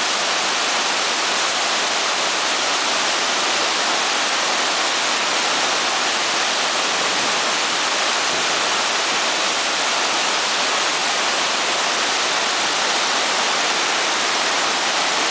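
Salto San Martín, a large waterfall of Iguazú Falls, with a heavy curtain of water pouring into a white-water gorge: a steady, even rush of falling and crashing water with no breaks.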